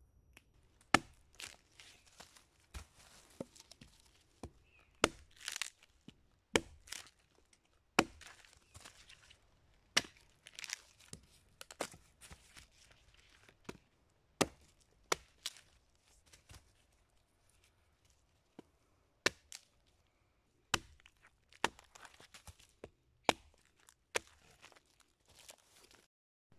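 A small hand axe chopping a short log laid on a larger log: sharp, irregular strikes every second or two, with the wood cracking and splintering between some of them.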